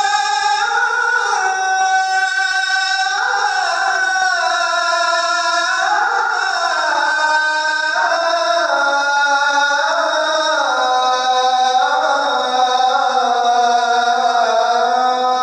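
A solo voice chanting Arabic Islamic prayer in a long melismatic style, holding notes and gliding between pitches without a break.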